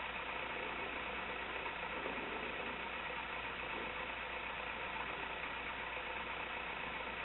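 Steady background hiss with a faint hum, even throughout, with no distinct sounds standing out.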